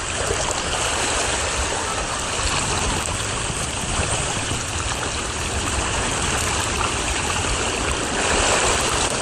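Steady rushing of water down a water slide flume as a rider slides along it.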